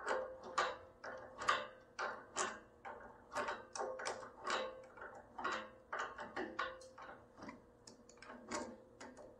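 Metallic clicking, about two clicks a second, as the spindle nut on a trailer axle hub is tightened to preload the wheel bearing. The clicks thin out and weaken near the end.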